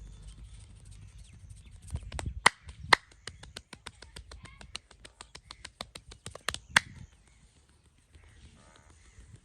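Massage hands tapping and slapping rapidly on the body in a percussive head and back massage: a run of sharp smacks about six a second, with a few louder slaps about two and a half and three seconds in and again near the end, then it stops.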